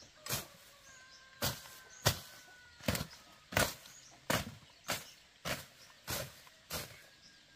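Repeated chopping blows in a steady rhythm, about ten strikes roughly two-thirds of a second apart, stopping near the end.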